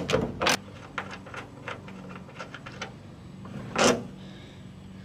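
Socket ratchet clicking briefly as the 9 mm hood-handle nuts are backed off, then light metal ticks from the loosened nuts and handle, and a single louder knock of metal on the steel hood just before four seconds in.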